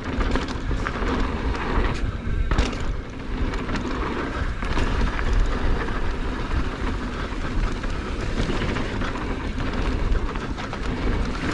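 Mountain bike running down a dirt trail: a steady rush of tyre and wind noise, with frequent sharp knocks and rattles as the bike goes over rough ground.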